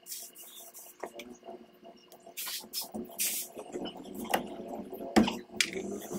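Several short hisses of an aerosol lubricant spray, applied through its straw onto a car's rear wheel hub spindle. Small metallic clicks follow as the bearing parts are handled, and a sharp knock comes about five seconds in.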